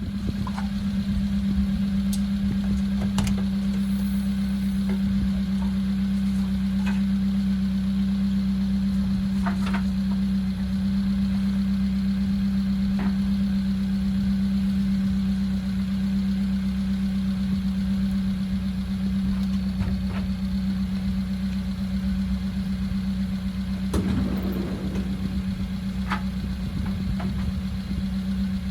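Vehicle engine running at a constant speed, a steady low drone, with a few light clicks and a louder knock about 24 seconds in.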